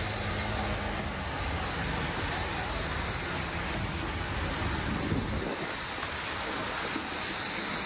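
Busy street traffic: a steady wash of traffic noise with a vehicle's low engine rumble that dies away about five and a half seconds in.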